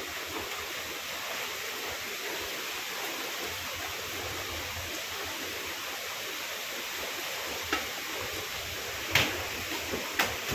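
Steady rushing noise with three short, sharp knocks in the last few seconds, the loudest about nine seconds in.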